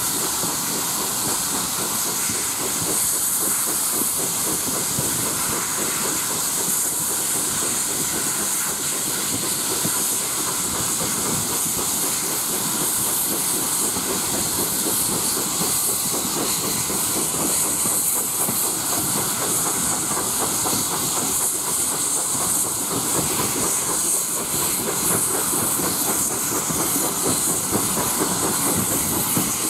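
Steam-hauled train heard from an open carriage window at speed: a steady hissing rush of steam and passing air, with the running of the wheels on the rails beneath.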